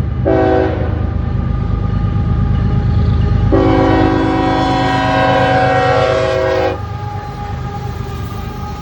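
CSX freight locomotive's air horn sounding a short blast, then a long blast of about three seconds, over the heavy low rumble of the diesel locomotive and the double-stack train rolling by.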